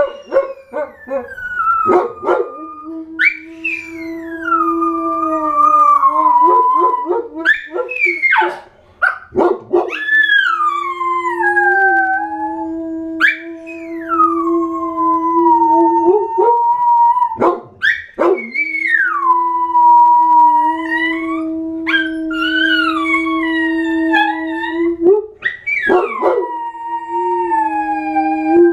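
Dogs howling, long overlapping howls: higher howls slide down in pitch again and again over a lower howl held for several seconds at a time.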